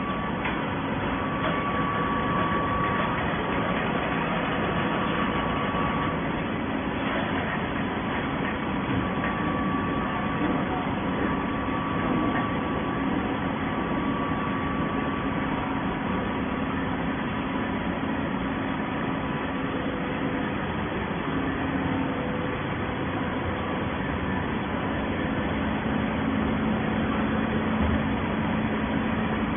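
Scrap carton baler machine running: a steady mechanical hum with a few faint steady tones that fade in and out.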